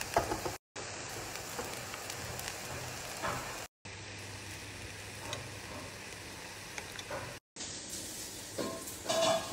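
Sugared vermicelli sizzling in a hot pan as it is stirred with a wooden spatula, with a few light scrapes. There is a short clink near the end, and the sound cuts out to silence briefly three times.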